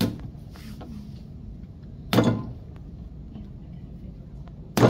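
A thick slab of wet clay thrown sideways and slapping down on the work board three times, about two seconds apart, the last two loudest. Each throw stretches the slab and opens up its stamped texture patterns.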